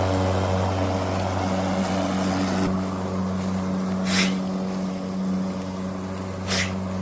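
Cordless electric lawn mower running with a steady low hum, with two short hissing rushes partway through.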